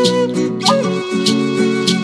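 A wooden end-blown flute plays a sustained melody over steadily strummed acoustic guitar chords, with a strum about every 0.6 seconds. One held flute note ends just after the start, and the next begins about two-thirds of a second in, with a quick upward slide into the pitch.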